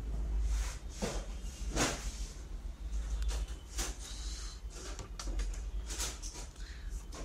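Handling noise: scattered knocks, clicks and rustles, the loudest about one and two seconds in, as equipment and a plastic tool case on a workbench are touched and the camera is moved, over a low steady rumble.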